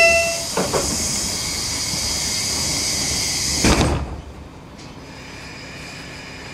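A train's pneumatic sliding doors closing: a short beep, then a loud hiss of air for about four seconds, ending in a heavy thud as the doors shut.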